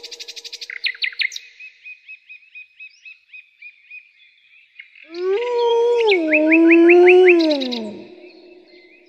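Woodland birds chirping and trilling, one repeating a short note about twice a second. About five seconds in, a wolf howls once for about three seconds: the pitch rises slightly, holds, then falls away at the end.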